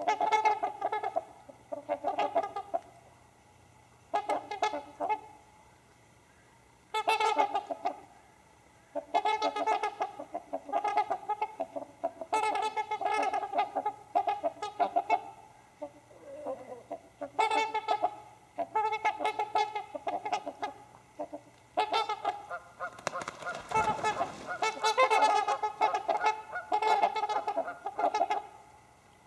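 Trumpeter swans calling as a group: repeated honks in bouts separated by short pauses, with a louder stretch of several birds calling together about two-thirds of the way through.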